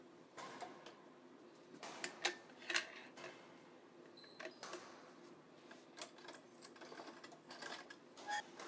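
Thin synthetic badminton string being threaded and pulled by hand through a strung racket: scattered light clicks and rustles as it slides past the other strings, the sharpest pair a little over two seconds in.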